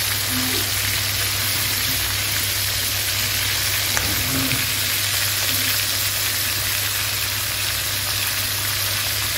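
Whole rats coated in lemongrass and chili shallow-frying in hot oil in a wok, sizzling steadily as they turn golden. A single light knock comes about four seconds in as the cooking utensils work the meat.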